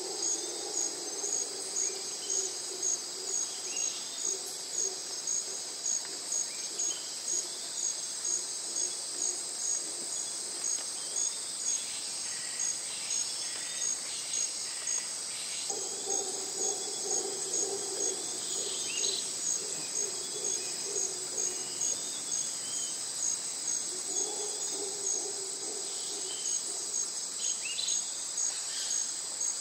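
Steady, high-pitched trilling of insects with an even pulsing beat. A lower hum comes in and out a few times, and faint short chirps are scattered through it.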